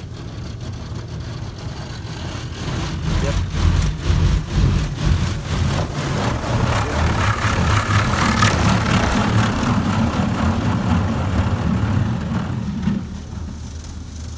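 High-pressure rinse jets of an automatic car wash spraying water onto the car, heard from inside the cabin: a rushing hiss that builds from about two seconds in, is loudest in the middle, and drops off near the end, over a steady low hum.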